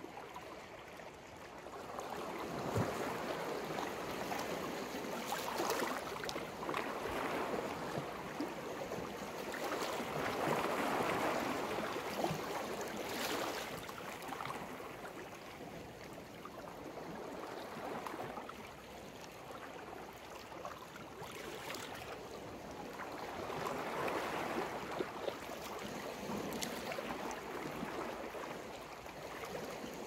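Calm sea waves breaking gently on the shore, the wash swelling and falling back every few seconds, with a few brief sharper splashes.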